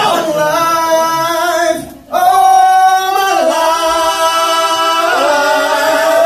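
A woman singing long held notes with vibrato, broken by a short breath about two seconds in, then sliding slowly upward near the end.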